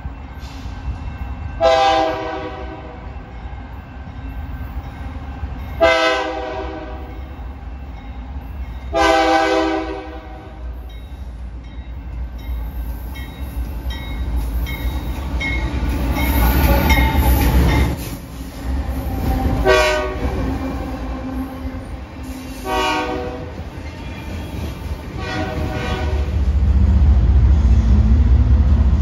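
Train horn sounding six times: three blasts of about a second each in the first ten seconds, then three shorter ones later. Under the horn is the steady low rumble of the train, which grows louder near the end.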